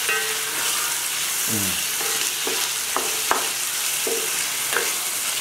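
Boneless chicken and onion sizzling in hot oil in a pan, stirred with a wooden spatula. The spatula scrapes and knocks against the pan a few times, sharpest about three seconds in.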